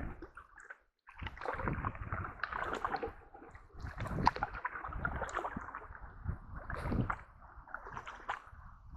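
Canoe paddling: paddle strokes splashing and gurgling in the water, with sharp knocks and splashes at irregular intervals. The sound cuts out briefly about a second in.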